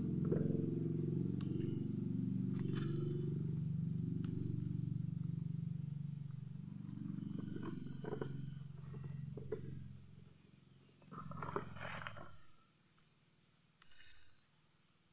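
A low, rough drone from an unseen source dominates and fades out about twelve seconds in, over a steady high whine. Burmese grapes are dropped by hand into a plastic bucket, giving a few sharp clacks and a short rattle near the end of the drone.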